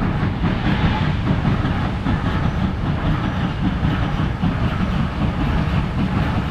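2-8-0 Consolidation steam locomotive No. 734 working hard as it approaches at the head of a passenger train: a steady, close run of exhaust beats over the heavy rumble of the train on the rails.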